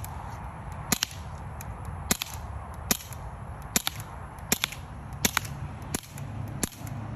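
Smith & Wesson air pistol firing about eight sharp cracks, roughly one a second, at a paper target.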